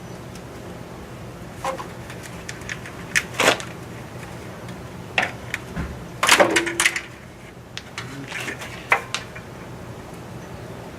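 Hand tools and car parts clicking, clacking and scraping as a part is worked loose with pliers, over a steady low hum. The clicks come in scattered clusters, with the loudest rattle about six seconds in.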